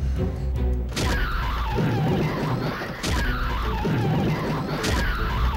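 Horror sound effect: three sudden hits about two seconds apart, each trailing off in a falling tone, over a low drone.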